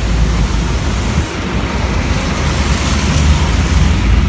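Steady city street traffic noise: a continuous low rumble with a hiss on top, a little brighter in the first second.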